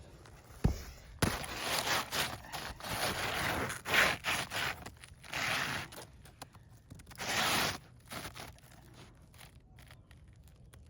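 Asphalt roof shingle scraping and rustling as a new shingle is worked into place under the course above, with a few sharp knocks and a longer scrape near the end.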